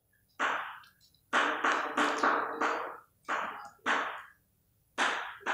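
Chalk writing on a blackboard: a run of short scratchy strokes with brief pauses between them.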